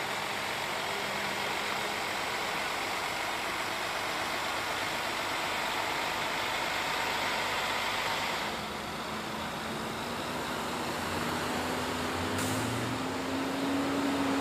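Road traffic noise with a heavy truck's engine running. About halfway through, the sound changes and an engine tone rises slowly in pitch as a vehicle speeds up.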